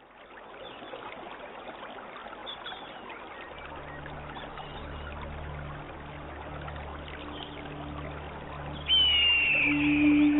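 Stream water trickling, fading in, with faint bird chirps. A low, steady music drone comes in at about three and a half seconds, and near the end a loud, high flute note enters and slides slightly downward.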